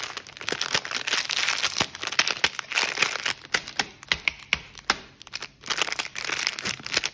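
Plastic wrapper of a Chupa Chups lollipop crinkling and crackling in a dense run of small snaps as it is handled and opened, with a short pause a little after five seconds in.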